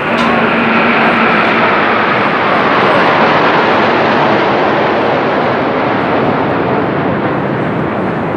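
Formation of RAF Eurofighter Typhoon jets flying low overhead: loud, steady jet-engine noise that swells slightly about three seconds in.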